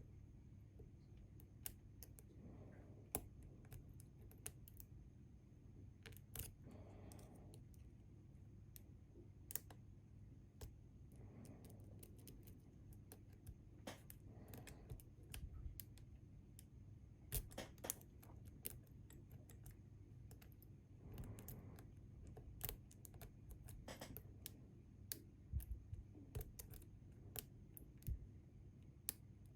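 Scattered small metallic clicks and ticks from lock-picking tools working inside a Bi-Lock cam lock, irregular and faint, coming more often in the second half.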